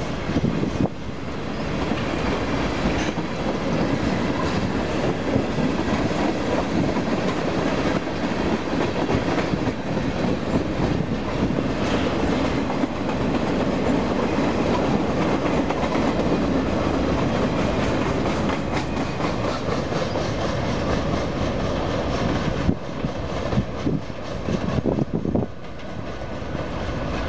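Freight train cars (boxcars and tank cars) rolling past at trackside: a steady rumble with repeated wheel clicks. Near the end the level drops as the last car goes by.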